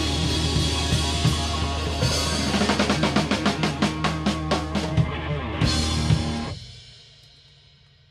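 Rock band of electric guitars, bass guitar and drums playing a song's ending: a held final chord over a steady bass note, a fast drum roll of about five hits a second, then a last hit. The band stops sharply about six and a half seconds in and the sound dies away to near silence.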